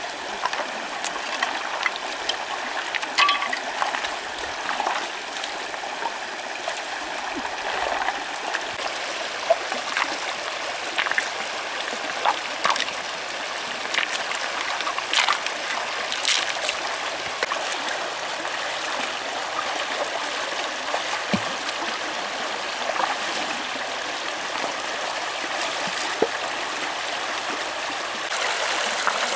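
Shallow river running over stones, with scattered short knocks and splashes as river stones are lifted and set down in the water by hand.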